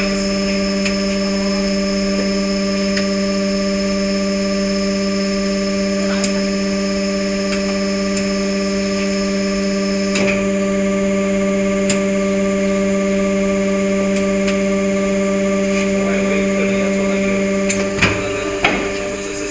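Hydraulic vertical injection molding machine for shoe soles running with a steady hum while its mold stays clamped shut. A few light clicks sound over it, with two sharper knocks near the end.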